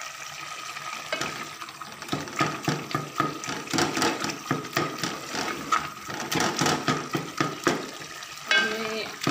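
A spoon stirring and mashing cooked spinach in an aluminium pot on the stove, scraping and knocking against the pot about two to three times a second from about two seconds in, over simmering liquid.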